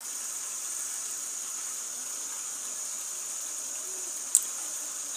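Tripe and tomato stew simmering in a covered pan, a steady hiss with one short click about four seconds in.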